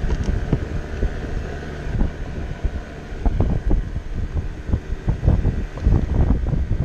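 Wind rumbling on the microphone, with irregular low thumps and a few light knocks.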